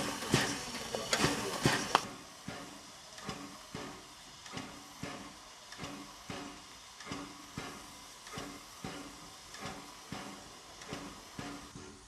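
Ol49 steam locomotive standing at rest, its air pump beating in an even rhythm of about two strokes a second over a steady steam hiss. A few louder knocks come in the first two seconds.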